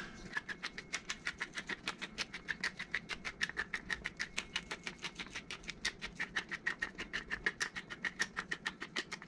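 Hand-twisted pepper mill grinding black peppercorns: a steady, rapid run of dry clicks, several a second.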